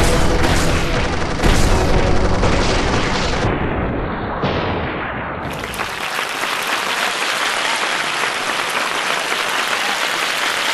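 Music with several deep booms in the first few seconds, giving way after about six seconds to a steady dense crackling noise with no bass.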